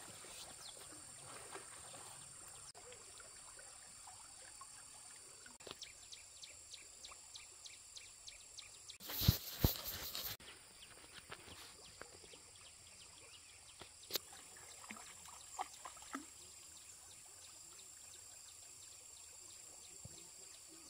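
Faint steady insect buzzing, with scattered clicks and a short loud noisy burst about nine seconds in.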